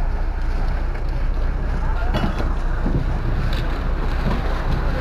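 Wind noise on the microphone over a steady background din of a busy open fish harbour, with a couple of faint knocks about two and three and a half seconds in.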